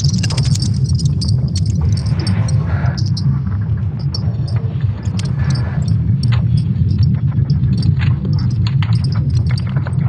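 Sonification of Earth's magnetic field made from ESA Swarm satellite measurements: a steady deep rumble with scattered crackles and clicks over it.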